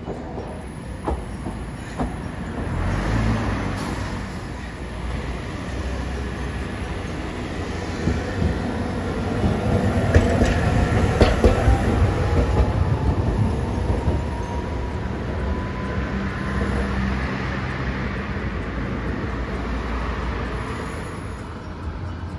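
Hiroden 800-series tram passing close by. It grows louder as it approaches and is loudest about halfway through, with a few sharp clicks from the wheels on the rails. A whine rises in pitch as it moves off, and the sound then fades.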